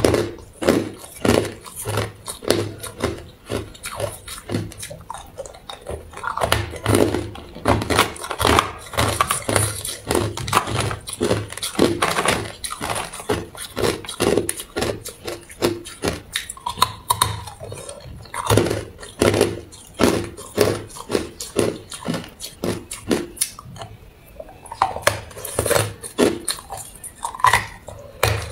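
Hard clear ice cubes being bitten and crunched in the mouth, a dense run of sharp cracking crunches that eases off briefly about three quarters of the way through.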